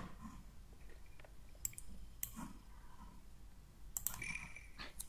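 A few scattered, sharp computer-mouse clicks over faint room tone.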